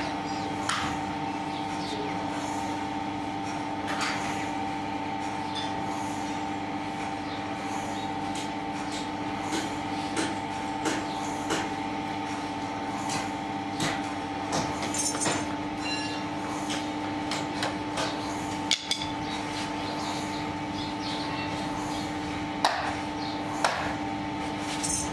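Heavy metal mould parts for brake-drum casting knocking and clanking as they are lifted, fitted together and set down, with scattered sharp clanks and two louder ones near the end. A steady hum runs underneath.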